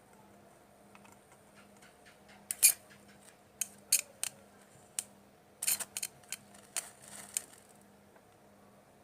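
Homemade 12 V battery welder arcing against wire: sharp, irregular crackling snaps as the electrode touches and sparks. There are two clusters, one starting about two and a half seconds in and a second, denser one in the middle.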